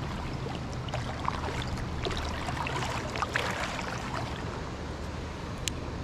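Creek water running and rippling over shallow riffles. About two to three and a half seconds in, it is broken by a run of short splashes and sloshes from wading upstream through the water.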